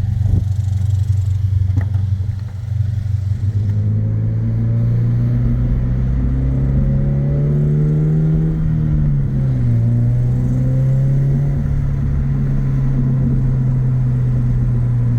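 Subaru BRZ's 2.4-litre flat-four engine running through an aftermarket exhaust. Its speed creeps up for several seconds, drops back about nine seconds in, and then holds at a steady idle.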